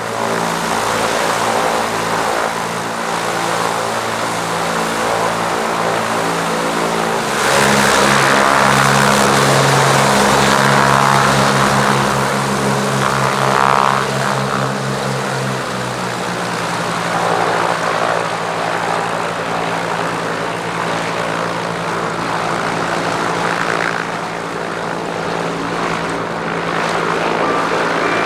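Piper PA-31-325 Navajo's twin turbocharged six-cylinder Lycoming piston engines and propellers running. About a quarter of the way in they are revved up and held louder for several seconds, a burst of power to blow snow off the fuselage, then eased back to a steady lower run.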